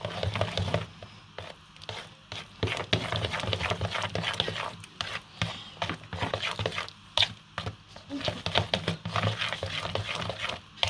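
Cake batter being stirred in a mixing bowl: irregular scraping and knocking of the utensil against the bowl, over a low steady hum.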